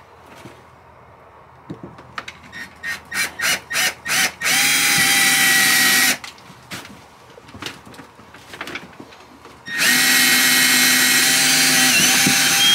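Small cordless drill drilling into a shower wall panel: several short trigger bursts first, then two steady runs of about a second and a half and about three seconds, the motor's whine holding one pitch.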